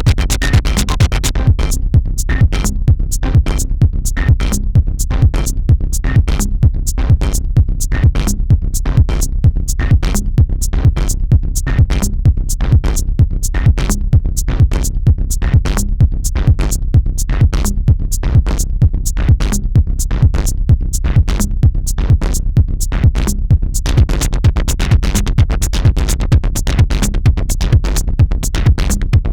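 Electronic dance music with a steady drum-machine beat, about two beats a second.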